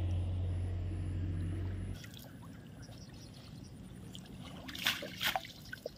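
A steady low hum that cuts off abruptly about two seconds in, then a few short splashes of water as a cast net is hauled in.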